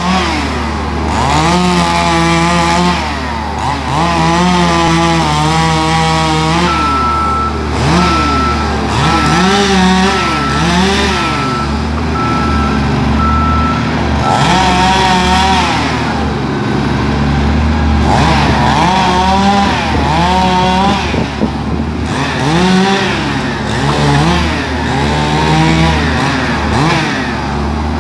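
Two-stroke chainsaw cutting tree limbs, its engine revving up and falling back over and over, over a steady low engine hum. A regular beeping runs for several seconds from about a quarter of the way in to the middle.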